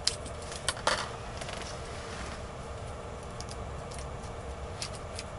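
Hands handling small fishing tackle: a few sharp clicks and light rustling, the loudest clicks in the first second, then fainter scattered ticks, over a steady low background hum.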